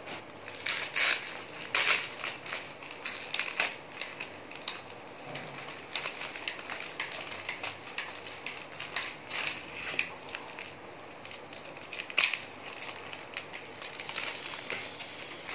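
Clear plastic packaging crinkling and crackling as it is unwrapped and handled, in irregular bursts, sharpest about a second, two seconds and twelve seconds in.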